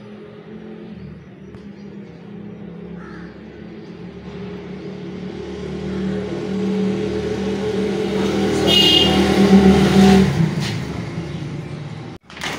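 A motor vehicle's engine hum that grows louder over several seconds, peaks, then fades near the end.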